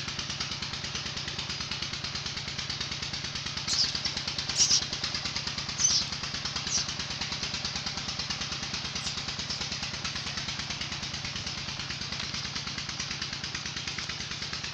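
An engine running steadily at idle with an even, rapid throb, and a few short high falling chirps or squeaks about four to seven seconds in.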